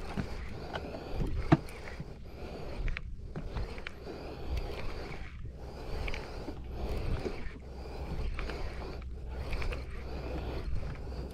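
Conventional jigging reel being cranked as line is wound in, over steady wind and sea noise, with a couple of sharp clicks near the start.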